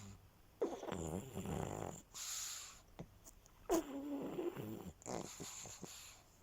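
Sleeping pug snoring: two snoring in-breaths, each followed by a breathy out-breath.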